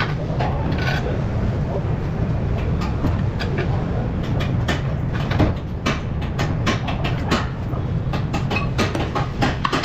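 Metal clinks and knocks from a car's front strut being handled and seated into the steering knuckle, over a steady low rumble.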